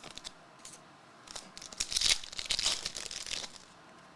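Plastic card-pack wrapping crinkling and rustling as trading cards are handled: a few light clicks, then about two seconds of crinkling starting just over a second in.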